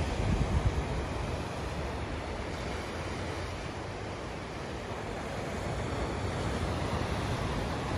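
Ocean surf breaking on a rocky shore, a steady wash of waves, with wind buffeting the microphone, strongest in the first second.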